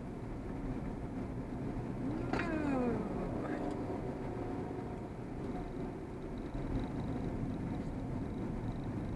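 Steady tyre and engine noise inside a moving car's cabin. A little over two seconds in, a single pitched call rises then falls, lasting under a second.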